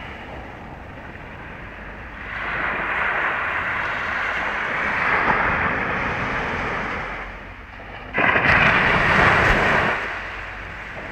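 Sea waves washing up over a sandy beach, the surf rising in two swells and fading between them, the second starting suddenly and loudest near the end. Wind buffets the microphone throughout.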